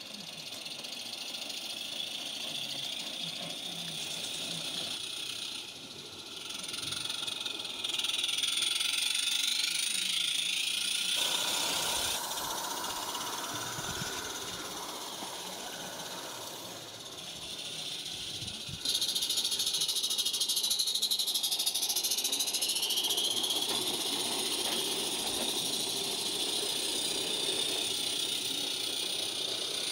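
16 mm scale garden-railway trains running on the track: wheels on the rails, with steam hissing from a live-steam locomotive. The sound jumps abruptly in level and character several times.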